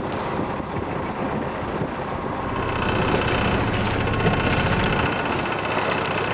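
A motor running steadily, a low hum under a wash of rushing noise, with faint high steady tones joining about halfway through.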